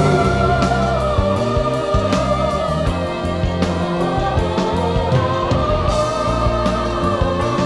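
Cantonese pop theme song carrying on after its last sung line: a held, wavering melody over bass and a steady drum beat.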